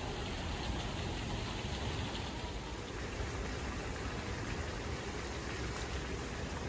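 Steady rushing noise with a deep rumble underneath, even and unbroken throughout.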